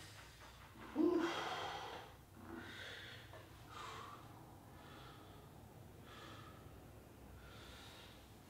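A person's heavy breathing from exertion during a dumbbell shoulder exercise: hard breaths in and out about every second and a half, the strongest a sharp one about a second in.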